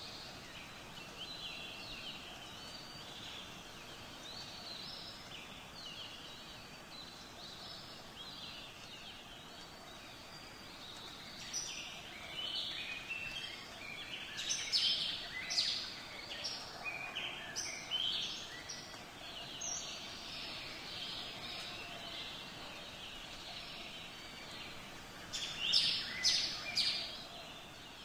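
A chorus of small birds chirping over a low steady hiss, the calls thickest in the middle and again briefly near the end.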